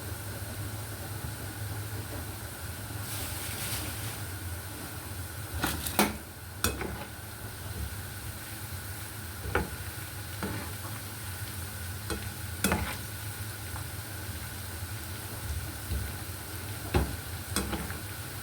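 Steady low machine hum with a brief hiss and a handful of sharp clicks and knocks from kitchen handling.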